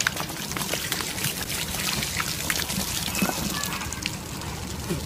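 A bucket of ice water dumped over a man's head. It hits with a sudden splash, then runs off him in a steady hiss of pouring and splashing water with scattered sharp drips.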